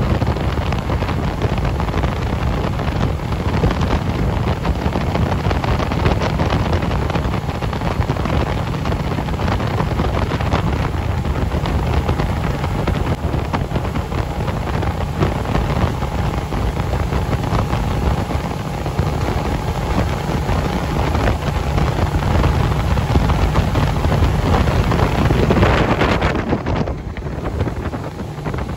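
Outboard motor driving a motorboat at speed, a steady drone mixed with wind buffeting the microphone and the rush of the wake. Near the end the sound changes and gets somewhat quieter.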